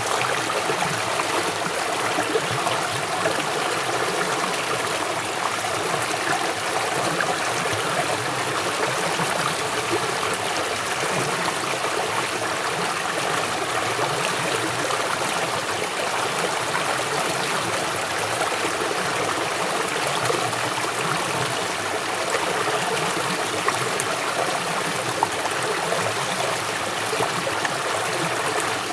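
River water flowing fast over rocks, a steady rushing with fine bubbling and splashing.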